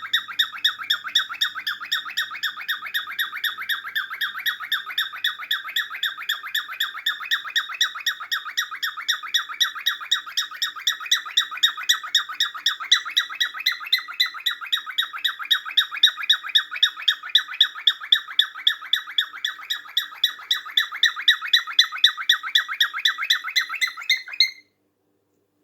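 Cockatiel giving a long, steady run of short repeated calls, about three or four a second, that stops abruptly near the end.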